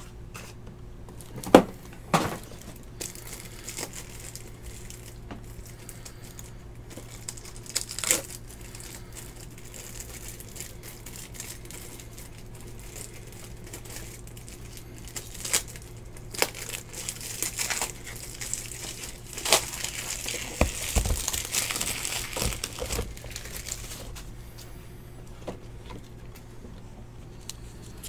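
Crinkling and rustling of plastic card packaging and sleeves as trading cards are handled, with a few sharp clicks and taps. The loudest click comes about a second and a half in, and a longer run of crinkling fills the stretch just past the middle.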